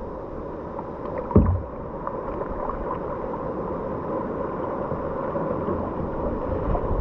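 Water sloshing and lapping around a sea kayak on the sea, with one sharp low thump about a second and a half in.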